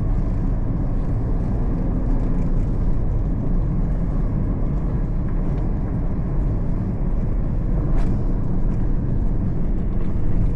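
Road traffic: vehicle engines running steadily, with a single sharp click about eight seconds in.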